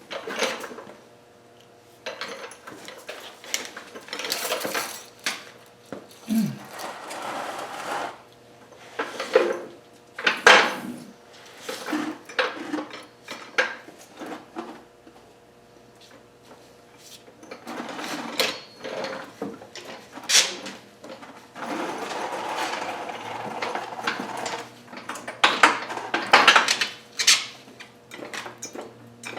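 Irregular metal clanks, rattles and scrapes of hand tools and shop equipment being handled, several of the clanks sharp and loud, over a faint steady hum.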